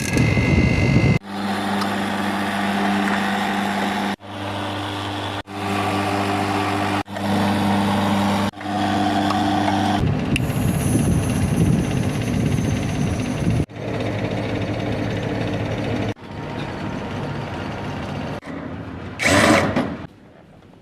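Machinery running with a steady low hum, heard in a string of short clips cut together. Near the end there is a brief, loud rush of noise.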